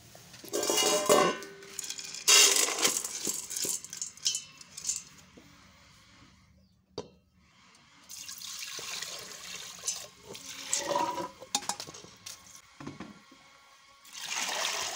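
Water splashing and pouring over soaked maize kernels being washed by hand in a pot to rinse off the chaff, coming in several loud bursts with quieter stretches between, and a single sharp knock near the middle.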